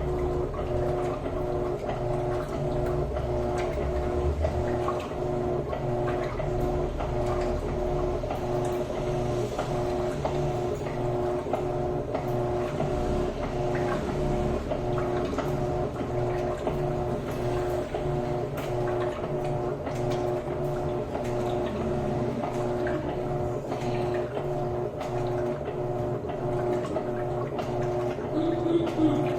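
Electrolux LTD13 top-loading washing machine running its agitation cycle, the motor humming steadily as it churns the water and clothes.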